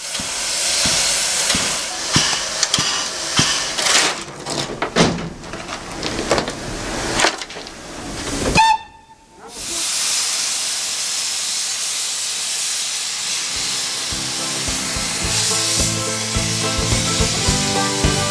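Steam locomotive, a Tkt48 tank engine, blowing steam from its cylinder drain cocks: a loud, steady hiss, with several sharp knocks in the first eight seconds and a brief drop about eight and a half seconds in. Music comes in under the hiss in the last few seconds.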